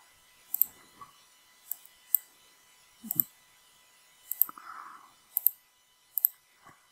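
Computer mouse button clicks, about eight spread over several seconds, several of them in quick pairs, with a soft brief hiss a little past the middle.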